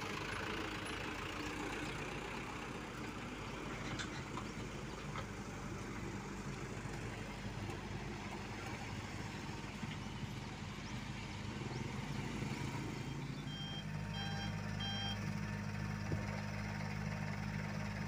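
Diesel engines of an asphalt paver and a dump truck running steadily. About three-quarters of the way through, a deeper engine note comes in and a reversing alarm beeps three times.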